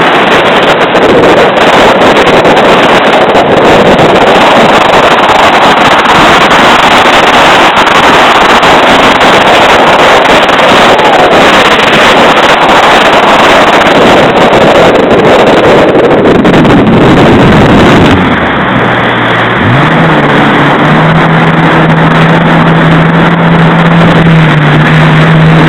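Jet ski running at speed across choppy water, very loud: engine noise mixed with rushing wind and water spray. About eighteen seconds in, the rushing noise eases. Shortly after, a steady engine drone rises in pitch and holds.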